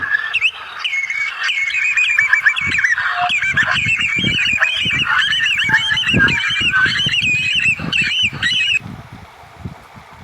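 A flock of birds calling together, many quick wavering calls overlapping in a dense chatter with low thumps underneath. The calls break off sharply near the end.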